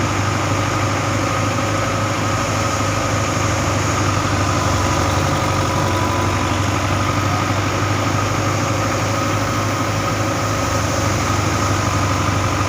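Farm machinery engine running steadily at constant speed during wheat harvesting, with a steady hum and a higher whine held throughout.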